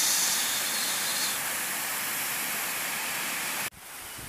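Water pouring over a low concrete weir: a steady rushing hiss that cuts off suddenly near the end, leaving a quieter outdoor background.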